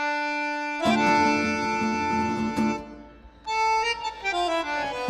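Instrumental background music starts: held chords, then a run of falling notes in the second half.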